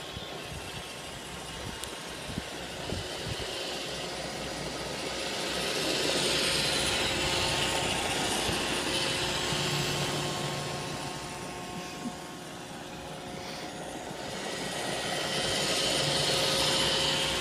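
iRobot Roomba 650 robot vacuum running, its motor and brushes making a steady whir with a hiss that swells louder twice, with a few light clicks near the start.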